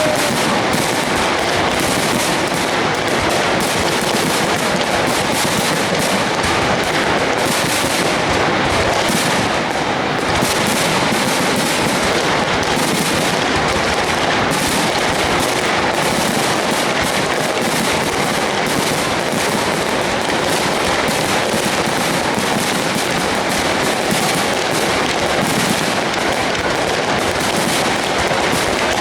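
Aerial fireworks display: many shells bursting in a dense, unbroken stream of rapid crackling and popping.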